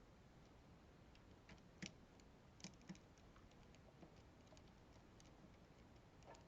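Faint, scattered small clicks and taps as computer parts are handled, with a few sharper ones about two and three seconds in, over near silence.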